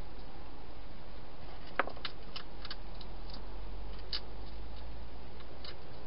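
Wild hedgehog eating dry food inside a plastic feeding box: irregular sharp crunching clicks, the loudest about two seconds in. Beneath them runs a steady hiss with a low hum.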